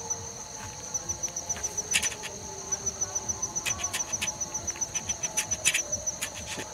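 Crickets chirping in a steady, high, pulsing trill, with scattered short crackles and rustles of a cloth bandage being wound around a forearm.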